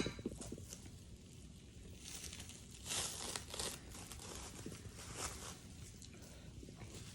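Faint, intermittent crinkling and rustling, as of food or its wrapping being handled, loudest about three seconds in and again around five seconds.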